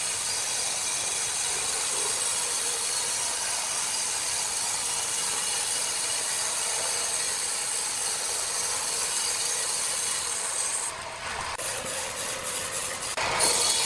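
Sawmill saw cutting wood: a steady high-pitched hiss with a faint whine. About eleven seconds in it drops and breaks up, and it comes back louder near the end.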